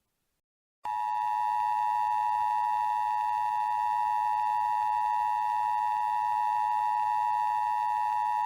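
Emergency Alert System attention signal: the steady two-tone alert, 853 Hz and 960 Hz sounded together, starting about a second in after a short silence and held without a break.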